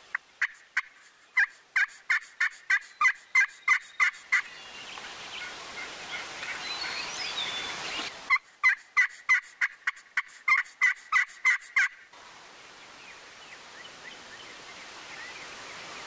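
Two runs of wild turkey hen yelps, short evenly spaced notes about three a second, the first at the start and the second about eight seconds in. Faint songbird chirps come in between.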